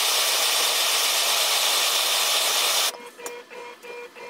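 Hand torch on a MAPP-gas cylinder burning with a loud, steady hiss as it heats a motorcycle swingarm's bearing bore to loosen a stuck bearing. The hiss stops abruptly about three seconds in, leaving a few faint clicks.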